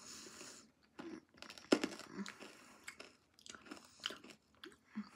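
Someone chewing and crunching a hard sour candy in the mouth: faint, irregular crunches and wet mouth clicks, the sharpest a little under two seconds in.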